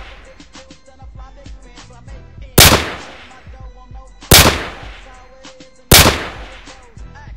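Three pistol gunshots, each a sharp crack with a tail that dies away over about a second; the first comes about two and a half seconds in and the next two follow at about a second and a half apart. Hip-hop music with rapping plays underneath.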